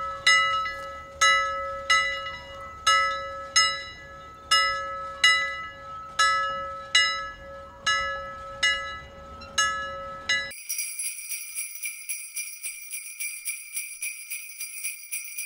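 Outro music of bell-like chimes: a ringing tone struck about once every 0.8 seconds over a steady held note. About ten seconds in it switches abruptly to a brighter, high-pitched jingling with quicker, lighter strikes.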